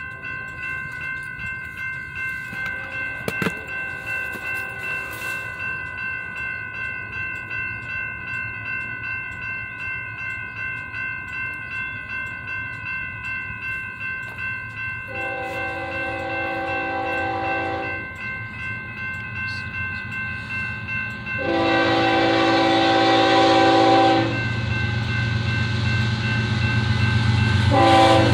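Railroad grade-crossing bell ringing steadily, pulsing about twice a second, as a diesel freight train approaches. The locomotive's air horn sounds a long blast about halfway through, a second, louder long blast a few seconds later, and a short blast near the end, the start of the crossing signal, while the rumble of the diesel locomotives grows.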